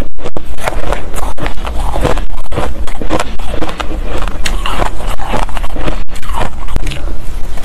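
A spoon digging into and scooping up a heap of soft shaved ice: a loud, dense, crisp crunching scrape.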